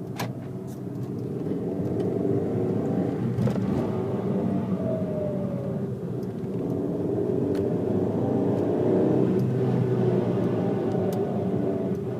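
VW Mk5 Jetta 2.0 turbo FSI engine and six-speed manual drivetrain running, with a rough grinding drone that shifts a little with engine speed; the owner says it sounds like a tractor. The grinding comes when letting off the gas or at certain rpms since a new timing belt and clutch, and its cause is unknown.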